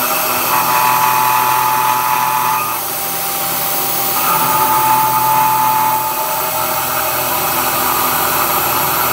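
CNC-converted Bridgeport milling machine running a half-inch three-flute carbide end mill at about 2,500 RPM in hot-rolled steel: a steady spindle and machine hum, with a higher cutting tone that comes in twice, about two seconds each time, as the tool engages the steel between rapid moves.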